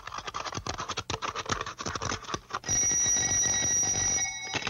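Cartoon telephone bell ringing: a fast metallic rattle for about two and a half seconds, then a loud, steady ring that cuts off shortly before the end.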